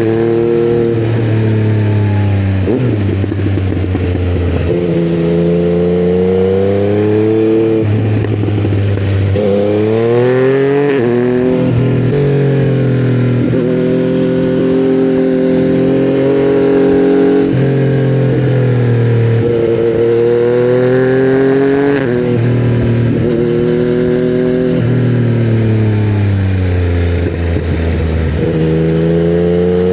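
2020 Yamaha MT-09's 847 cc inline three-cylinder engine running through a custom header and titanium Akrapovic silencer, pulling through the gears. The engine note rises and drops sharply at each gear change several times, with stretches of steady cruising between.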